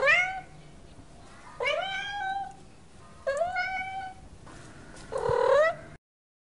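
Domestic cat meowing four times, about a second and a half apart, each meow rising in pitch at its start. The sound cuts off abruptly near the end.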